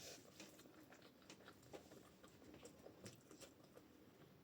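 Near silence with faint, scattered small clicks and mouth sounds of someone eating.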